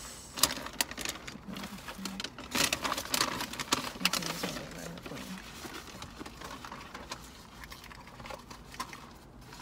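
Paper fast-food bags and wrappers rustling and crinkling as food is unpacked, with scattered sharp crackles and taps.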